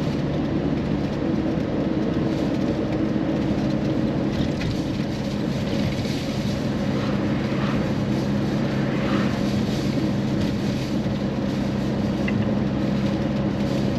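Car driving at road speed, heard from inside the cabin: a steady engine drone under tyre and road noise.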